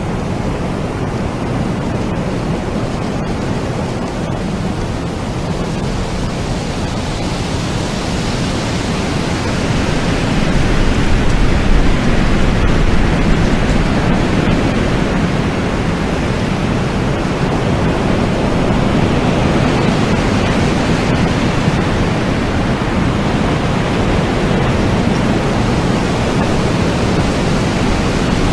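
Steady, loud rushing noise with no clear tone, strongest in the low range, growing a little louder about ten seconds in.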